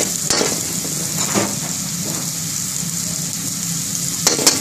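Chopped onions sizzling in oil in a steel wok over a gas burner, with a steady low hum underneath. A metal utensil scrapes and knocks against the wok a few times, twice close together near the end.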